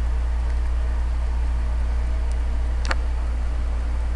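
Steady low hum with an even hiss behind it, and one short click about three seconds in.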